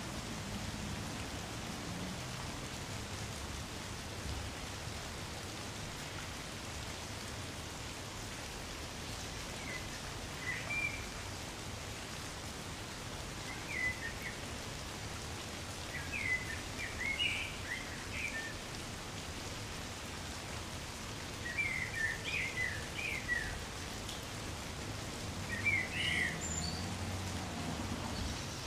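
Light, gentle rain falling steadily on trees, with short clusters of high bird chirps breaking in from about ten seconds in and recurring every few seconds.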